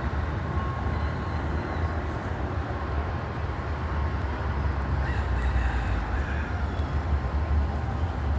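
A rooster crowing faintly about five seconds in, over a steady low rumble of city traffic.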